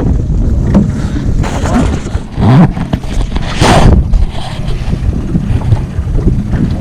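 Boat motor running steadily while trolling, with wind buffeting the microphone and two louder rushes of noise near the middle.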